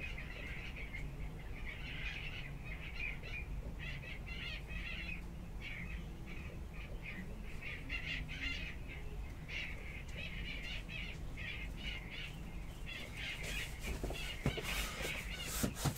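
Birds chirping in short, irregular bursts throughout, over a steady low hum.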